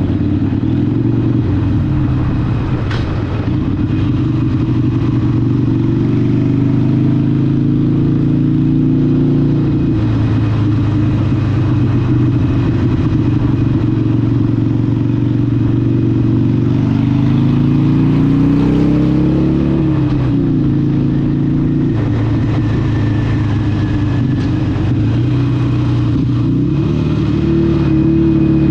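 Harley-Davidson 883 SuperLow's air-cooled 883cc Evolution V-twin running through a Vance & Hines exhaust on the move, its note rising and falling with the throttle. The pitch climbs about two-thirds of the way through and again near the end.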